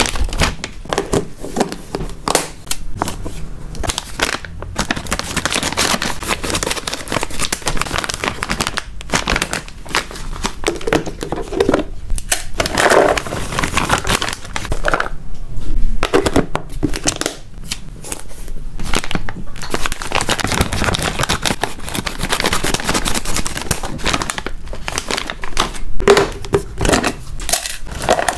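Plastic snack packaging crinkling and tearing as it is handled and opened, with dense small clicks and rustles.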